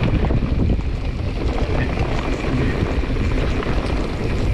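Wind noise on the camera microphone mixed with a 2021 Giant Trance X 29 full-suspension mountain bike riding fast down a wet dirt singletrack: tyres rolling on dirt and the bike rattling with many small knocks over the bumps.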